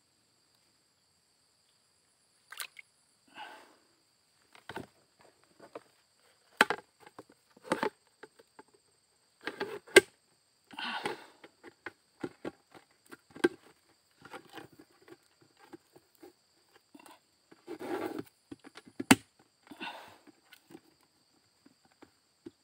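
Scattered sharp clicks, knocks and short rustles at irregular intervals, the sounds of close-up handling, over a faint steady high-pitched hum.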